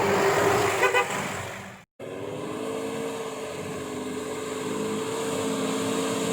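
Motor vehicle running, with a short pulsing horn toot about a second in; after a sudden cut, a vehicle engine drones steadily at a nearly constant pitch.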